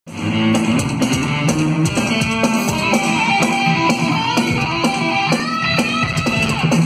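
Electric guitar and bass guitar playing a heavy metal solo live on stage, loud through the concert PA.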